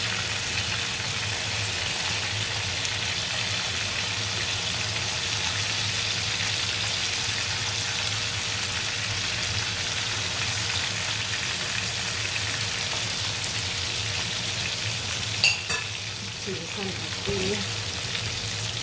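Fish pieces shallow-frying in hot oil in a nonstick pan, a steady sizzle, while they are turned over with metal tongs. A single sharp click stands out about three-quarters of the way through.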